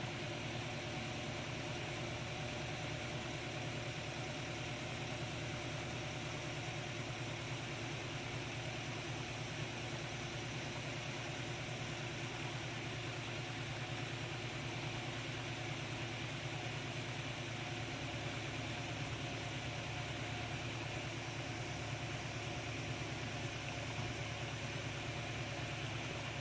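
An engine idling steadily at an unchanging pitch, with no revs or knocks.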